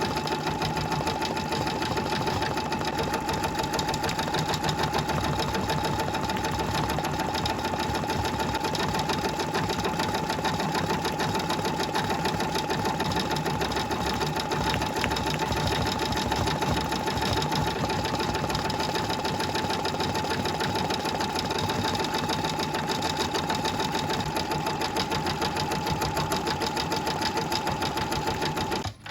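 Electric sewing machine stitching continuously at a steady, fast pace, with a steady whine over the rapid needle strokes. It stops abruptly near the end.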